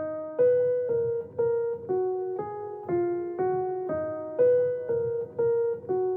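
Background music: a slow melody of single electric-piano notes, about two a second, each fading away.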